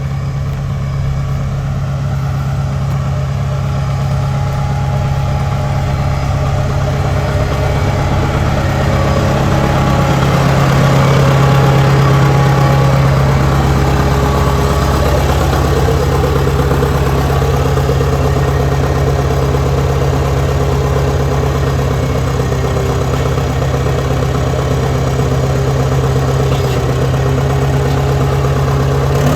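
Compact track loader's engine running steadily under light load, swelling a little about ten to thirteen seconds in and then settling.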